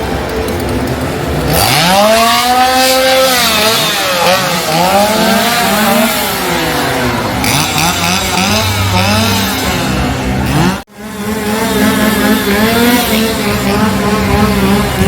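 Several chainsaws revving up and down over one another, their pitch rising and falling again and again. The sound drops out briefly about eleven seconds in and then carries on.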